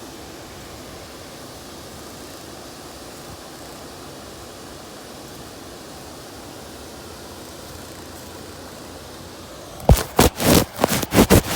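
Steady, even hiss of falling rain. About ten seconds in, a quick run of loud knocks and scrapes as the recording phone is handled.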